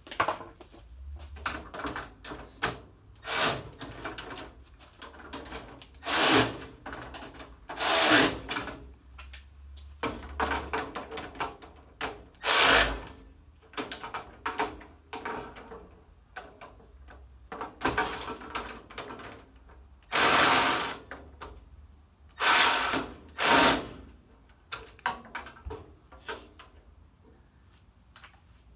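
Cordless drill run in repeated short bursts on the fasteners of a steel tool cart, the longest about a second and a half, with metallic clicks and knocks of the tool and parts between runs.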